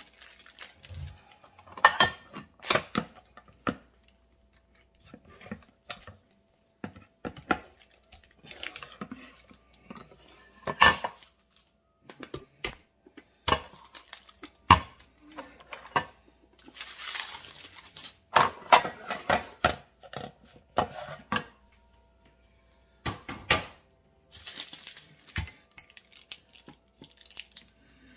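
A rolling pin rolls out pie dough between sheets of parchment paper on a wooden counter: scattered sharp knocks and clacks of the pin and hands on the counter, with stretches of paper crinkling.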